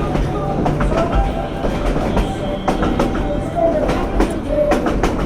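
Narrow-gauge passenger train rolling along the track, heard from aboard: a steady rumble with irregular clacks and knocks from the wheels and couplings.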